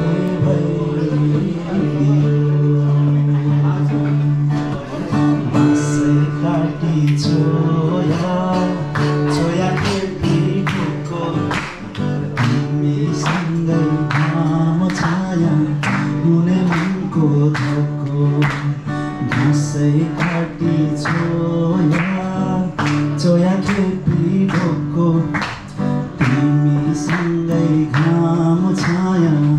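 A man singing a song to guitar accompaniment, with a steady beat coming in about six seconds in.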